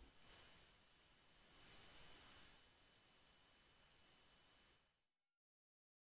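Electronic intro sound effect: a steady, very high-pitched pair of close tones with faint static swelling up twice, about a third of a second in and again around two seconds. It all cuts off about five seconds in.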